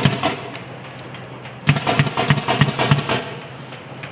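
Automatic gunfire in bursts: one burst cuts off just after the start, and a second burst of about six shots a second begins near the middle and lasts about a second and a half.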